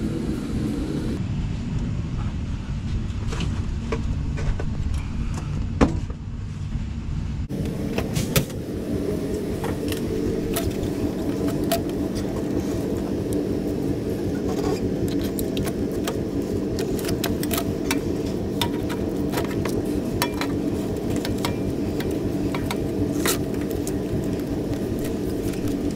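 Scattered clicks and rattles of plastic clips, clamps and rubber hoses being handled and pulled loose in a UTV engine bay, over a steady low mechanical hum.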